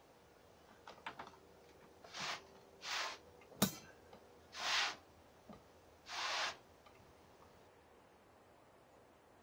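Hand-knotting yarn on the warp threads of a carpet loom: four short rasping swishes, a few light clicks, and one sharp click about three and a half seconds in.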